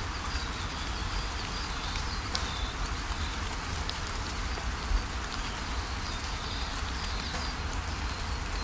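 Steady rain falling with scattered drips ticking, and faint high-pitched animal calls.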